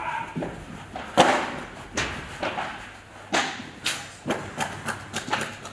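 Padel ball being struck with rackets in a rally, a series of sharp pops with hall echo, the loudest about a second in. Near the end they give way to a quicker run of lighter knocks.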